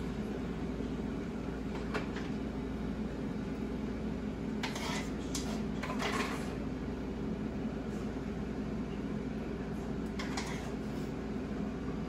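Metal tongs clinking and scraping against a skillet and ceramic plates as cooked greens are served out, in short scattered clicks with a cluster about halfway through. A steady low hum runs underneath.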